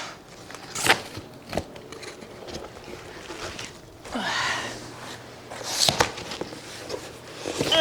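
Handling of a large cardboard box: a few sharp knocks and rustles, with a breathy sigh or effort sound about four seconds in.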